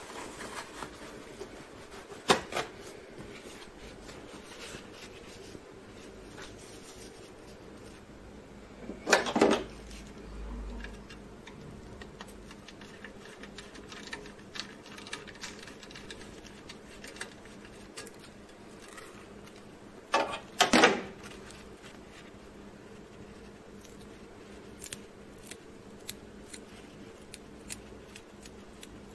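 Hand-handling noises on a printer's fuser assembly: scattered small clicks and light scrapes as fingers work the thermistors and their wiring. There is a sharp click early on, then a rustling burst of a paper towel being handled about a third of the way in and a double burst about two-thirds through.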